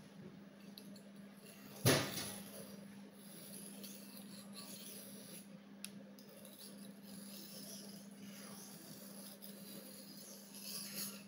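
Knife-sharpening gear being handled: a single sharp knock about two seconds in, then faint handling and rubbing noises over a low steady hum.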